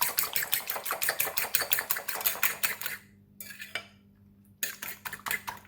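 Raw eggs being beaten in a mixing bowl, the utensil clicking rapidly against the bowl about eight times a second. The beating stops about three seconds in and starts again after a short pause.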